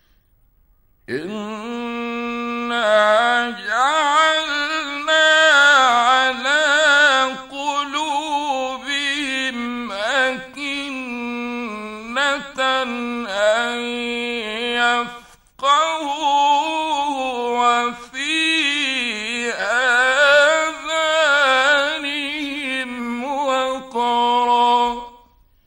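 A man's voice chanting a Quran verse in the melodic mujawwad style. It holds long, drawn-out phrases with wavering ornaments on the vowels and breaks off briefly about midway.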